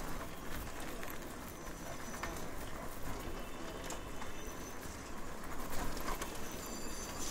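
Steady outdoor background noise with birds calling: a few short, high chirps stand out now and then.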